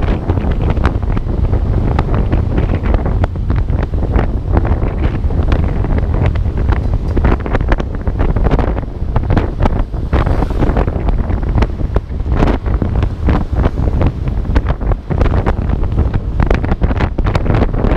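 Wind buffeting the microphone of a GoPro Hero4 on a moving motor scooter: loud, steady low-heavy noise that flutters constantly.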